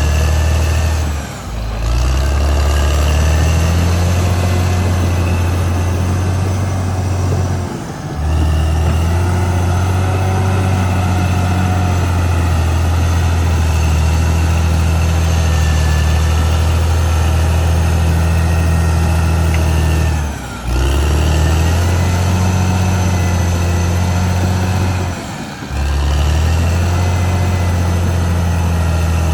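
Caterpillar D6R XL bulldozer's diesel engine running steadily under load, with a deep, even drone. The level dips briefly four times.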